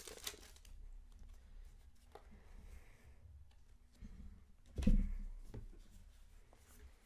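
Faint rustling and light clicking of a Pokémon booster pack and its cards being handled, with one louder bump of handling about five seconds in.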